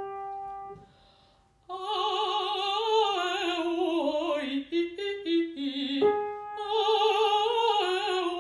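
Operatically trained female voice singing a vowel warm-up on A, E, I, O, U with strong vibrato: a long phrase that descends in pitch, a few short notes, then the phrase again. A single piano note sounds at the start and again about six seconds in, giving the starting pitch.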